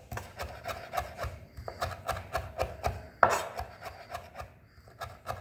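Chef's knife mincing fresh cilantro on a wooden cutting board: a quick, even run of blade strikes on the wood, about five a second, with one louder knock a little past halfway and lighter strokes near the end.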